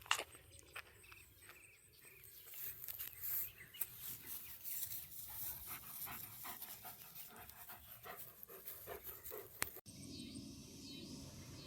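German Shepherd dog panting rapidly close to the microphone. Near the end it cuts to outdoor ambience with evenly repeated high chirps.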